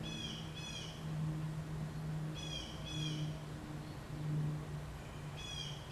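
A bird calling in short paired chirps, three times, over a steady low hum.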